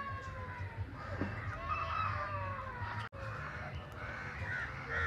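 Bird calls: a long call that falls slightly in pitch, then another about two seconds in. After a sudden break, a few short calls near the end.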